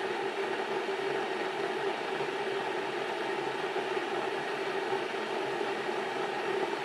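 Electric kettle heating water toward the boil: a steady rushing noise with a low hum through it.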